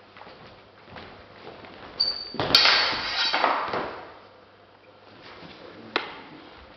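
Swords and bucklers striking in a quick sparring exchange. A ringing metallic clink comes about two seconds in, then a sharp clash and about a second and a half of scuffling and clattering with some ringing. A single sharp clack comes near the end.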